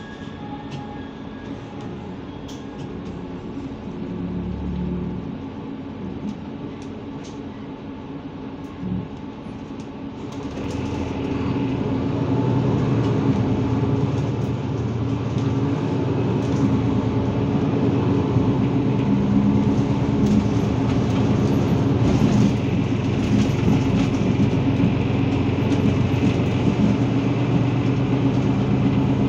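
Interior sound of a Mercedes-Benz Citaro G C2 articulated city bus. It is quieter for the first ten seconds or so while the bus creeps along. About ten seconds in it grows louder as the bus speeds up, and then runs on with a steady engine drone and road noise.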